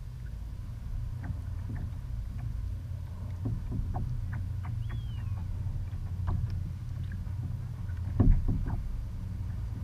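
Water slapping and knocking against a plastic kayak hull, with a low steady rumble underneath. Short knocks come scattered throughout, and one louder thump comes a little after eight seconds.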